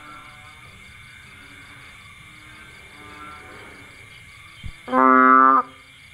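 A bullfrog gives one loud, low, moo-like call lasting just over half a second, about five seconds in. Behind it runs a steady high-pitched chorus of night calling, with fainter calls from other frogs.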